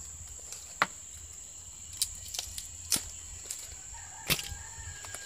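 A knife cutting the ends of coconut palm leaf strips makes a series of sharp clicks. The loudest come about a second in, near three seconds and just after four seconds.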